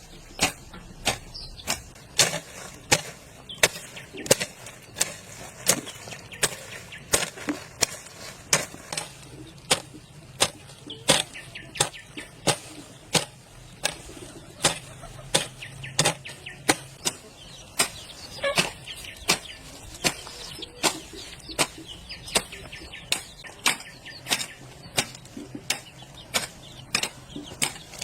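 Steady series of sharp blows from a hand tool, about one and a half strikes a second, kept up without a break.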